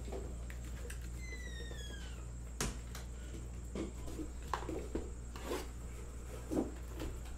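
Scattered soft knocks and taps of a shrink-wrapped trading-card box being handled and set on a tabletop, with a sharper click near the middle, over a steady low hum. A brief falling squeak comes about a second in.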